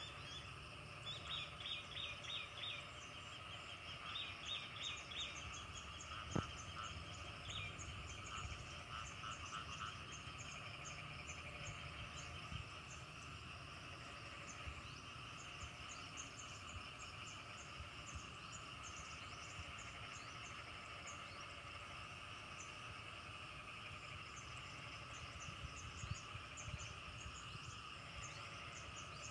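A chorus of frogs and insects in a rice paddy: a steady trilling chorus with quick, high chirps repeating throughout, and clusters of short calls over the first eight seconds or so. A single sharp click about six seconds in.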